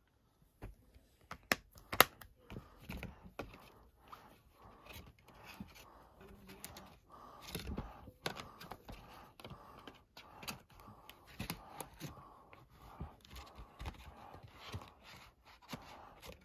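A plastic DVD case and its cardboard slipcover being handled: a string of plastic clicks, taps and light rustles, the loudest a sharp snap about two seconds in, fitting the case being closed.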